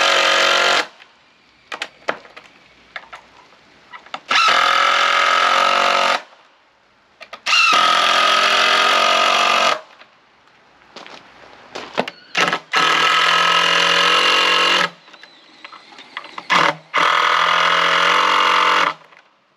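Electric power saw cutting lumber to length, five cuts of about two seconds each. The motor runs up and holds a steady whine through each cut, with knocks and clatter of boards being handled in between.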